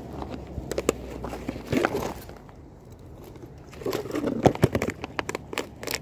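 Handling noise: rustling, crinkling and light knocks of a carried bag and the handheld phone, with shoe scuffs on concrete, loudest in two bursts about two seconds and about four seconds in.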